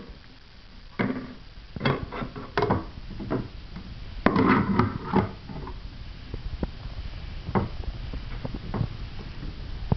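Plastic toy kitchen parts being handled by a toddler: scattered clacks and knocks, with a busier stretch of clatter about four seconds in.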